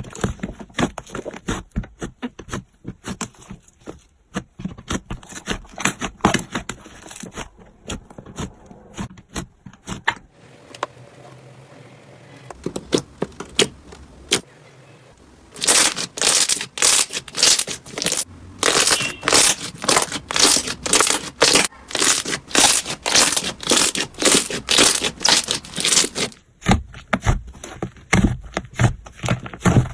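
Slime being squeezed and poked by hand, giving fast runs of sharp pops and crackles, softer for a few seconds in the middle and densest in the second half.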